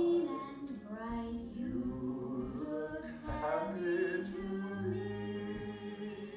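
Several voices singing together in long held notes over a steady low accompaniment, a song from a film soundtrack playing on a television.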